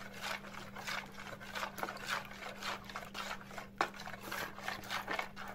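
Metal spoon stirring foamy, detergent-laced liquid in a plastic bowl: irregular swishes and light scrapes, several a second, over a faint steady hum.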